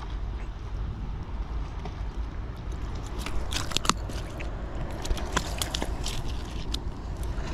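Close handling noise as pliers work a hook out of a sea bass's mouth: a cluster of sharp clicks and scrapes about three to six seconds in as the fish and the metal pliers are handled and set down on the stone, over a steady low rumble.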